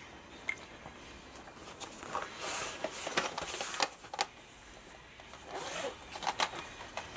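Paper rustling and scratching as a sketchbook is shifted and handled on the lap, in scratchy swells with a few small sharp clicks, mostly in the middle and near the end.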